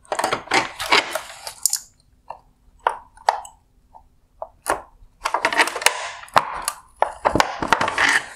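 Needle-nose pliers working at a mounting clip on the high-beam reflector bracket inside a headlight housing: bursts of scraping and rubbing with scattered sharp clicks, the loudest click about six and a half seconds in.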